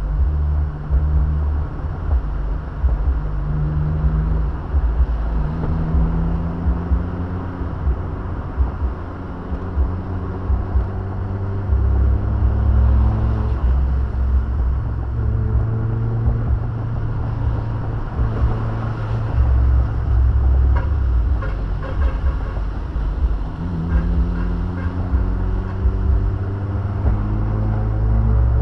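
Car engine and road noise heard from inside the cabin, with a heavy low rumble; the engine's pitch rises several times as the car accelerates.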